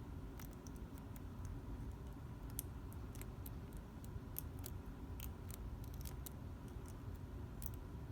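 Light, irregular metallic clicks of a lock pick working the pins of a Pachislo slot machine lock, over a low steady background hum.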